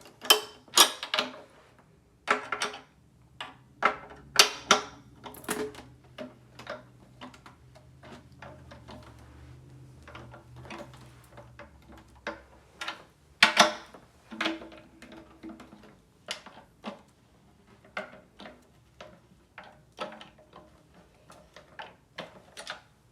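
Irregular clicks and knocks of tools and metal hardware as loose bolts on a drum are tightened, some sharp and loud, many faint.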